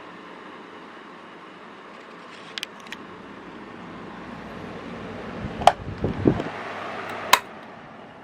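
12-inch Sekai DFN 1202 table fan running with a steady whoosh of air, with a few light clicks, some low knocks and a sharp loud click near the end, after which the fan's sound begins to fade as it is switched off and slows.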